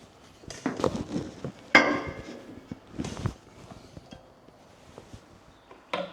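Knocks and clatter of ratchet straps and hooks being unhooked and handled, with one sharp clank that rings briefly about two seconds in and a few more knocks a second later.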